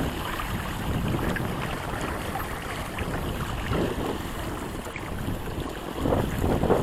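Wind buffeting the microphone and water rushing past the hull of a small sailboat under way, growing louder in a gust about six seconds in.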